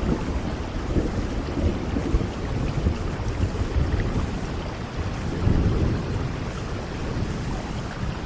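Steady rain falling with low rolling thunder rumbling underneath, the rumble swelling about five and a half seconds in.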